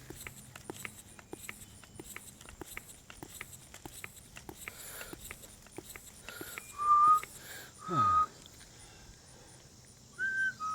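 Bicycle tyre being inflated with a hand pump: a rapid ticking, then about two-thirds of the way in, three loud, short, squeaky tones.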